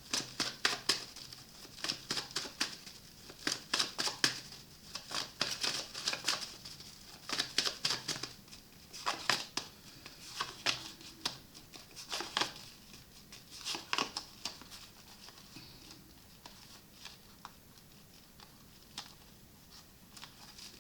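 Tarot deck being shuffled and handled: quick crisp card flicks and snaps in clusters, thinning out to a few faint ticks after about fifteen seconds.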